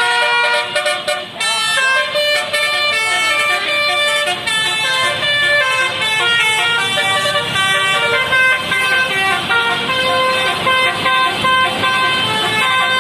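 Basuri telolet multi-tone bus horn playing a melody: a fast run of bright, steady horn notes stepping up and down in pitch, a new note about every quarter to half second.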